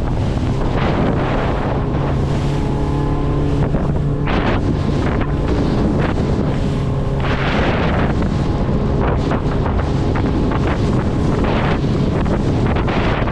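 Small boat's outboard motor running under way, a steady low hum half buried in heavy wind buffeting the microphone. The wind surges louder about four seconds in and again about seven and a half seconds in.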